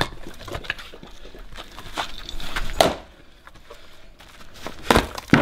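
An axe chopping firewood rounds on a chopping block: a sharp chop about three seconds in and two more close together near the end, with smaller knocks and rustling between.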